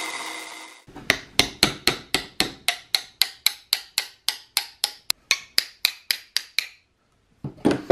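A drill press runs briefly and cuts off under a second in. Then a hammer drives metal dowel rods into holes in a plywood vise jaw, a steady run of about four blows a second for nearly six seconds.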